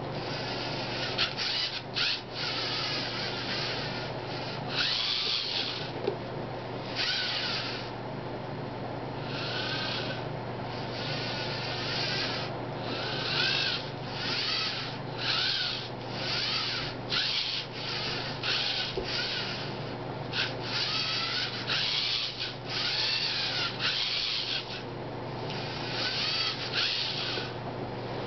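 LEGO Mindstorms NXT servo motors whirring in many short starts and stops as the small wheeled robot drives forward and back to hold a set distance from an object in front of it; the whine bends up and down in pitch as the robot speeds up and slows near its target.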